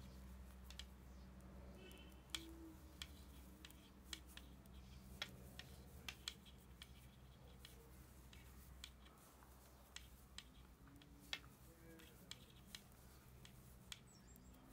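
Faint, irregular clicks and ticks of wooden knitting needles as stitches are knitted, over a low steady hum.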